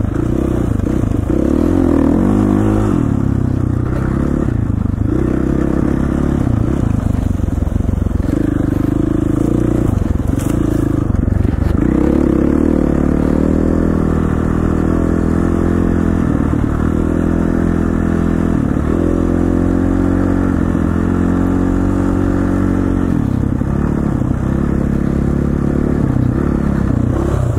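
KTM 450 dirt bike's single-cylinder four-stroke engine running while being ridden, its revs rising and falling over and over.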